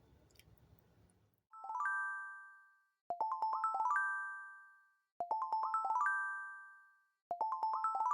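Chime-like intro music: a quick rising run of bell-like notes that rings out and fades, repeated about every two seconds, starting about a second and a half in.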